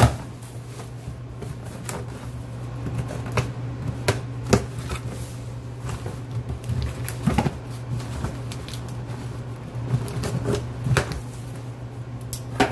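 A cardboard shipping box being opened by hand: packing tape slit with a small blade and the cardboard flaps pulled back, giving scattered scrapes, rips and cardboard rustles with a few sharper knocks, over a low steady hum.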